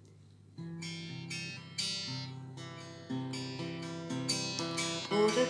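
Acoustic guitar playing the opening chords of a song, coming in about half a second in after a brief silence, with a new chord struck roughly every second.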